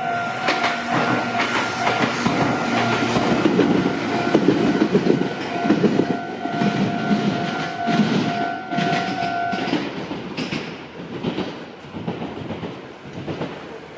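Japanese level crossing's electronic warning bell ringing steadily while a Meitetsu Inuyama Line train passes, its wheels clattering over the rail joints. The bell stops about ten seconds in and the train noise fades away.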